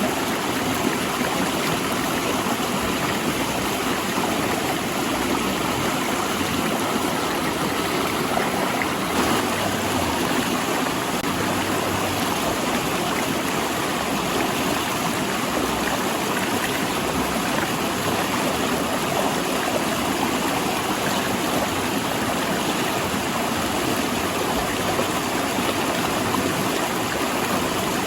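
A rushing river flowing over and between large rocks, a steady, unbroken roar of water.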